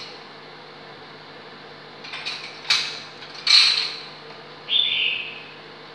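A metal ladle stirring chicken hotpot in a pot, with a few sharp clinks and scrapes between about two and four seconds in and a brief scraping sound near the end. The steady hum of an induction cooktop runs underneath.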